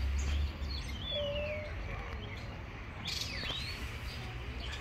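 Small birds chirping: several short whistled calls that glide up and down in pitch, over a steady low rumble that is louder for the first half second.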